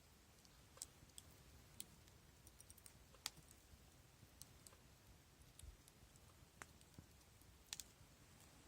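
Faint crackling of a burning wood fire: irregular sharp pops and snaps over a low hiss, the loudest a little past three seconds in.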